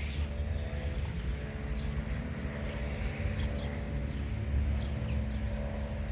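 Steady low mechanical hum, with a few faint high chirps.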